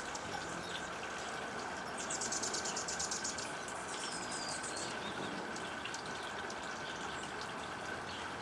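Anna's hummingbirds giving a rapid, high-pitched chatter about two seconds in, lasting about a second, with a faint high call a little later. Under it runs a steady background hiss with a constant thin tone.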